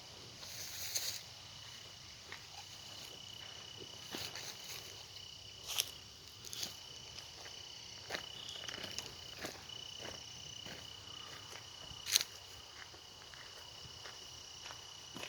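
A steady, high-pitched insect drone, with scattered footsteps and sharp crunches on the trail, the loudest about six and twelve seconds in.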